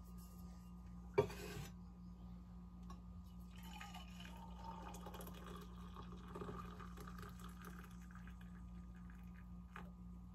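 A sharp clink about a second in, then freshly steeped coffee poured from a stainless-steel French press into a metal mug, a soft trickle lasting several seconds.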